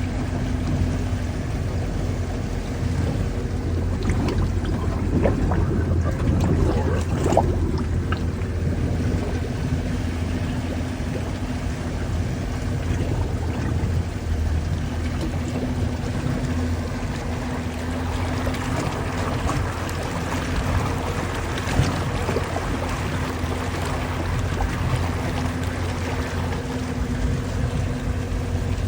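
A motor running steadily, with water rushing and splashing, as the vessel moves through floodwater.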